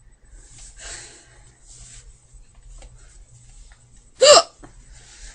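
A girl hiccups once, loudly, about four seconds in: a short voiced "hic" that drops in pitch.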